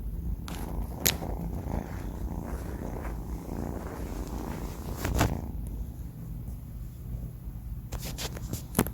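Sleeping four-month-old kitten making a low, steady rumble, with a few brief clicks and rustles, the loudest about five seconds in and just before the end.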